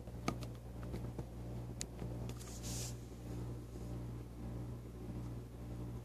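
Low steady hum with a few light clicks in the first two seconds and a short soft hiss about three seconds in.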